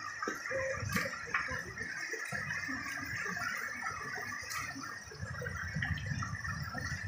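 Shallow river water rushing over stones, with a few sharp knocks.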